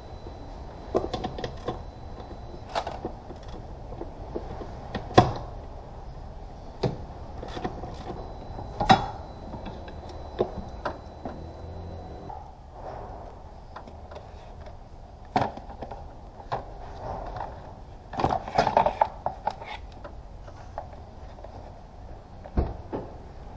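Hand tools and parts clicking and knocking as a mechanic works in a car's engine bay: scattered single sharp clicks and clunks, with a quick run of clicks about 18 seconds in.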